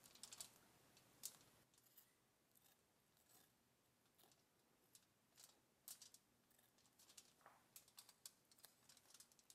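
Near silence broken by faint, scattered clicks and scrapes: a butter knife spreading butter over an ear of corn lying on aluminum foil.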